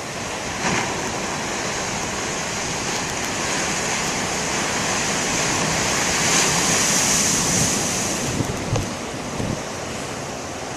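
Big ocean waves breaking in heavy surf. The rush of water swells to its loudest about six to eight seconds in, then eases off.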